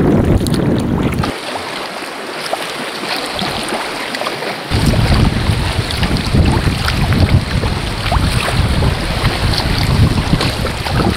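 Sea water splashing and lapping around a sea kayak, with wind rumbling on the microphone. The wind rumble drops away about a second in and comes back a few seconds later.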